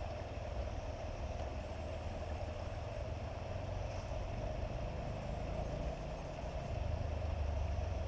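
Steady rushing of a shallow rocky river, with a low, fluttering rumble underneath.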